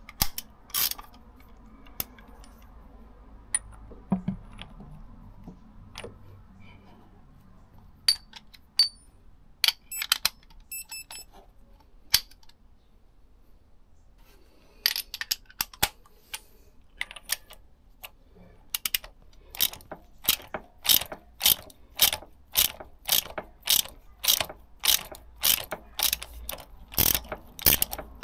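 Socket ratchet clicking as it spins the gearbox sprocket's retaining nut down onto the tab washer, only snugged and not yet tightened. A few scattered clicks at first, then from about halfway a steady run of clicks, two or three a second.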